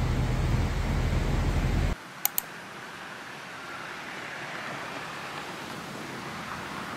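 Large bus's diesel engine idling with a steady low rumble, which cuts off suddenly about two seconds in. Two sharp clicks follow, then a faint steady outdoor hiss.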